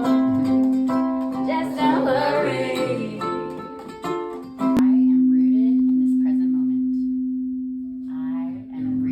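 Singing over a plucked-string accompaniment. About four and a half seconds in, a singing bowl tuned to C is struck and rings with one steady tone that slowly fades, under a faint voice.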